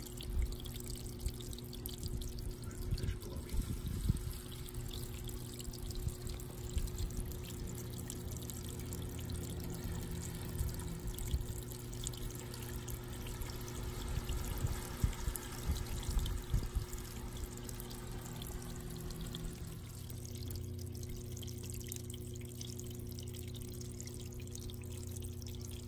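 Water pouring and trickling steadily, with a steady low hum underneath.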